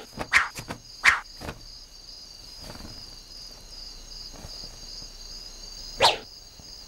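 Sword swishing through the air in quick strokes, several in the first second and a half and one more about six seconds in, over a steady chirping of crickets.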